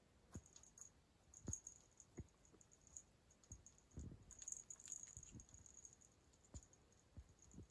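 Near silence with faint scattered clicks and a few soft taps from a cat playing with a wand toy on a rug.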